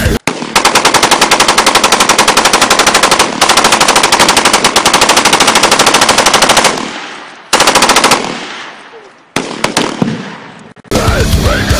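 AR-style rifle fired on full auto: a long rapid string of about a dozen shots a second, broken once briefly, then two short bursts, each trailing off in echo.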